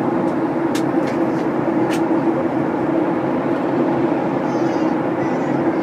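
Airliner cabin noise during the climb after takeoff: a steady drone of jet engines and airflow heard from inside the cabin. Two faint clicks come about one and two seconds in.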